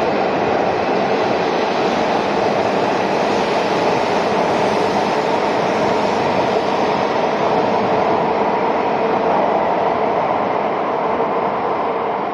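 Shinkansen train running along the platform, a loud, steady rush of wheel and motor noise that eases slightly near the end.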